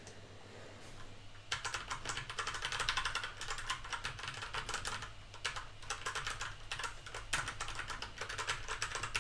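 Fast typing on a Kinesis Edge split mechanical keyboard with Cherry MX Brown switches: a quick, uneven clatter of keystrokes that starts about a second and a half in and keeps going.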